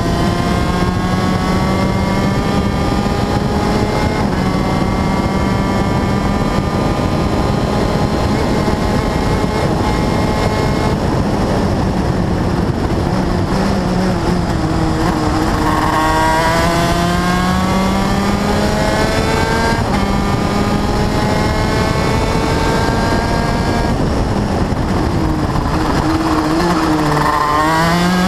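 Race car engine heard onboard under load, with wind and road noise. It pulls steadily with its pitch climbing for the first ten seconds or so, then drops as the car slows around halfway. It climbs sharply again about sixteen seconds in, and near the end it dips and picks up once more.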